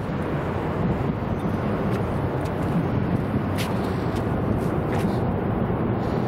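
Steady low outdoor rumble of wind buffeting the microphone mixed with road traffic, with a few faint ticks a few seconds in.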